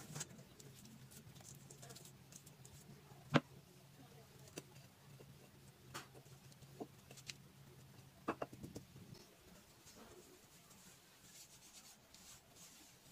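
Faint scattered clicks and taps of hand work as a ceramic toilet-paper holder is set into mortar in a tiled wall recess. The sharpest knock comes about three and a half seconds in, and a cluster of clicks follows around eight seconds in, over a faint low hum.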